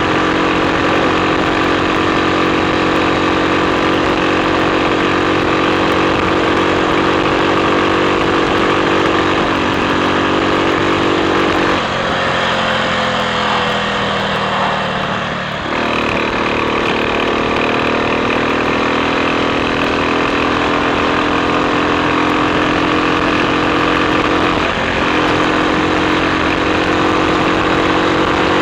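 Triumph Sports Cub's single-cylinder four-stroke engine running steadily under way. Near the middle its note drops away for a few seconds, then it pulls steadily again.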